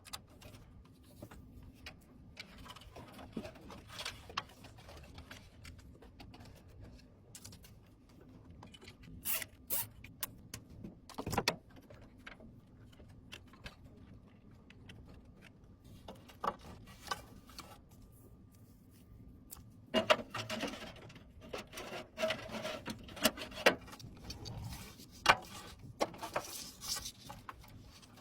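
Hands working on PC parts during assembly: scattered small clicks, taps and scraping. The sounds come in busier stretches about three seconds in and again from about twenty seconds on, with one sharper knock about eleven seconds in.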